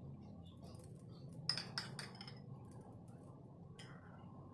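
Two light clinks of a kitchen utensil about a second and a half in, over a faint steady low hum.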